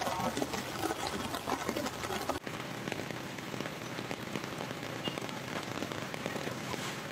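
Heavy rain falling on a flooded street, a steady hiss of drops on water. The sound changes abruptly about two and a half seconds in, becoming a denser hiss.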